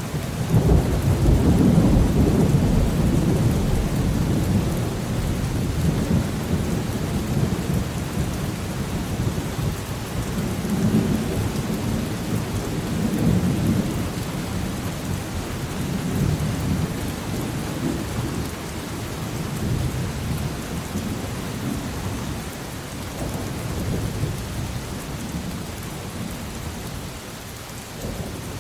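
Thunderstorm: steady rain with a long rolling thunder rumble that breaks in at the start, is loudest about two seconds in, and keeps rolling in waves that slowly die down.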